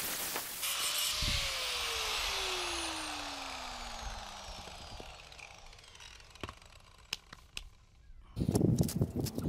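Angle grinder winding down just after cutting through a metal boat engine mount: a hiss that fades and a pitch that falls slowly over about five seconds. A few clicks follow, then a burst of metal clatter near the end.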